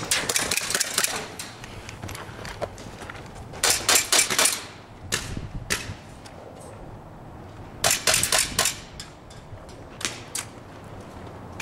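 Airsoft guns firing in bursts of rapid clicking shots. There are several bursts, with the loudest about four and eight seconds in and a short pair near the end.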